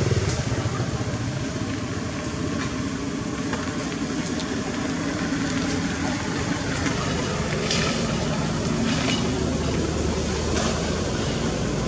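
Steady low hum of an engine running, with a handful of short faint clicks scattered through it.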